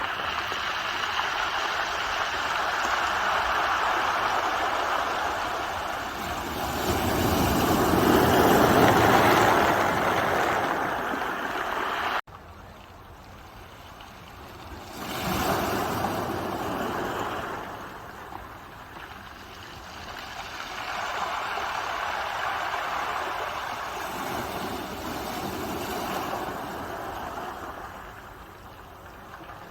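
Ocean waves breaking and washing up the shore in slow swells, the biggest about eight to ten seconds in. About twelve seconds in the sound cuts off abruptly and drops in level, and smaller swells of surf follow.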